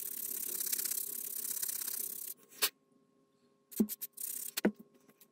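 Small styrene model part being sanded on a sanding stick: a steady rubbing hiss that stops a little over two seconds in. Then a sharp click and two light knocks as the pieces are handled and set down.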